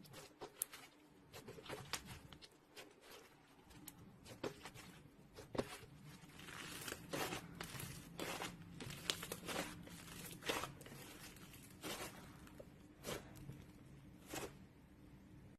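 Slime being squeezed and stretched by hand: a run of sticky clicks, pops and crackles that grows denser about six seconds in, over a faint steady hum.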